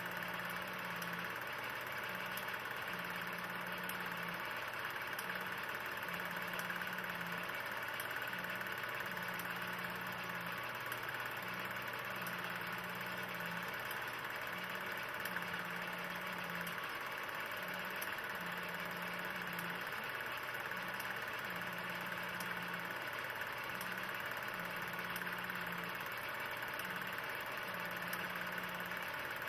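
Steady machine-like running noise: hiss with a constant low hum, a slightly higher drone that cuts in and out irregularly about every second, and faint scattered clicks. There is no music.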